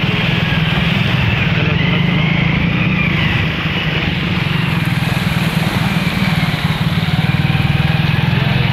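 An engine running steadily close by, with a fast, even pulsing, and faint voices in the background.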